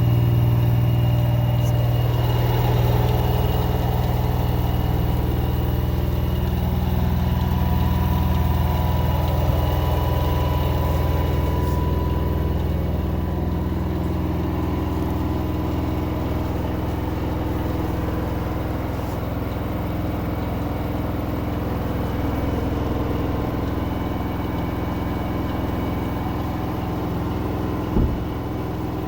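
LG 10 kg front-load washing machine running, its direct-drive motor giving a steady low hum with a faint higher whine, easing slightly after the first few seconds; the owner takes it for a motor fault, a sound like pebbles turning inside. A single short knock near the end.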